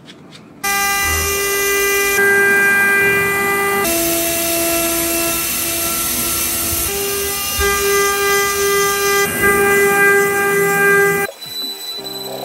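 CNC milling spindle cutting an aluminium blank for a cycloidal disc: a loud, steady whine made of several held tones, which steps to a different pitch a few times as the cut changes. About a second before the end the cutting whine drops away, leaving a quieter sound with a thin high tone.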